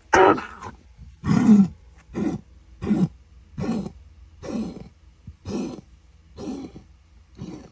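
A Doberman's harsh, rasping laboured breaths, nine in a row about once a second, the first two loudest. They are the sign of fluid bubbling in her lungs from a heart enlarged by dilated cardiomyopathy (DCM).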